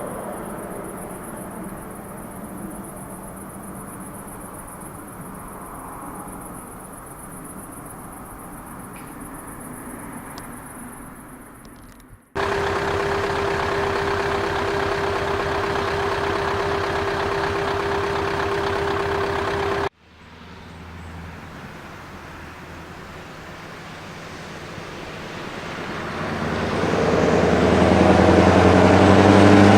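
Scania truck with an open, straight-through exhaust pipe, running and fading away over the first twelve seconds. After a sudden cut comes a steady, louder drone with one held tone. After another cut the engine grows much louder near the end as the truck comes past.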